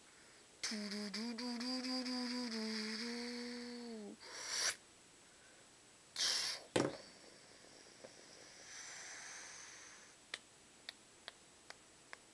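A person's voice holding one long, low hummed note for about three and a half seconds. A short breathy hiss follows twice, and near the end come a few faint clicks.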